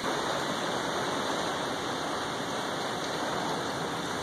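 Heavy thunderstorm rain falling steadily, heard through a closed window.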